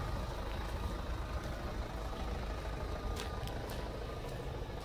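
Hyundai Santa Fe turbo-diesel engine idling with a steady low rumble, with a few light clicks about three seconds in.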